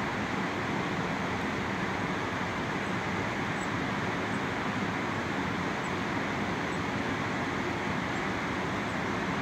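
Steady rush of river water churning over rapids, an even noise without breaks or swells.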